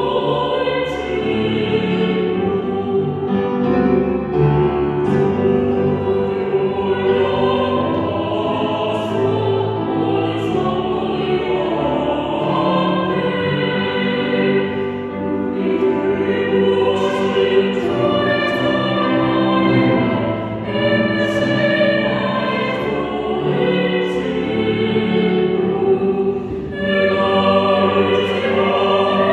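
A small mixed choir of men's and women's voices singing a hymn in Korean, with sustained notes held across several parts.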